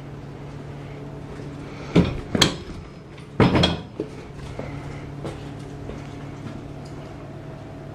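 Sharp knocks and hollow clatters from the plastic bed and steel frame of a tow-behind poly dump cart being handled, in two clusters about two and three and a half seconds in, over a steady low hum.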